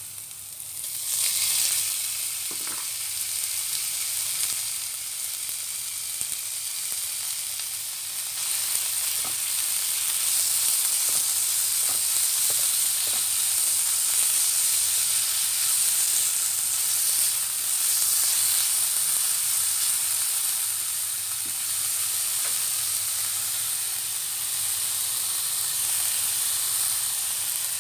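Ground beef sizzling as it fries in hot oil with garlic and chili in a nonstick pan, stirred with a spatula. The sizzle swells up about a second in as the meat goes into the pan, then runs steadily.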